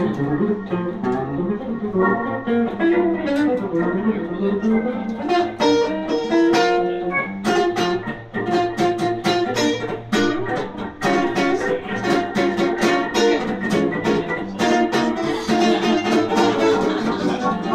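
A small acoustic band of accordion, archtop guitar, double bass and violin playing live, with the guitar out front picking quick runs of notes.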